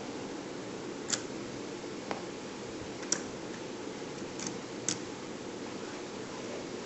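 Small, sharp clicks of HO-scale metal wheelsets being pressed into a plastic locomotive truck, about five over a few seconds, over a steady hiss.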